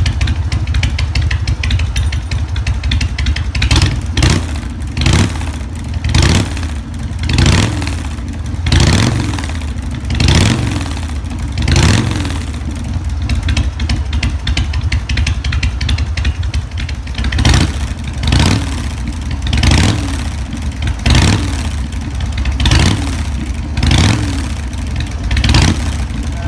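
Harley-Davidson Sportster V-twin idling through drag pipes fitted with inner silencers, blipped in short revs about every one to two seconds, with a lull in the revving around the middle.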